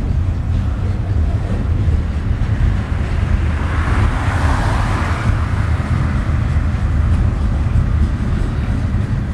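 Freight train rolling past: a steady low rumble of boxcars and a lumber car on the rails, with a louder rush of noise about four seconds in.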